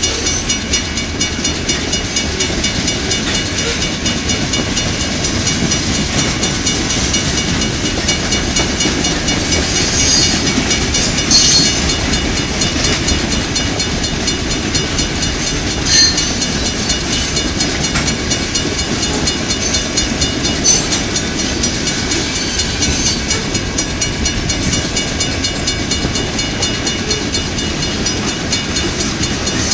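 Loaded coal hopper cars of a freight train rolling past a grade crossing: a steady heavy rumble of steel wheels on rail with clickety-clack over the joints. A few louder metallic clanks come about ten, eleven and sixteen seconds in.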